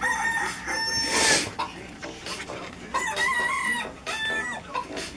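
Chicken clucking and crowing sounds from a techno chicken song, playing through a laptop's speakers. The pitched calls repeat, with a loud squawk-like burst about a second in.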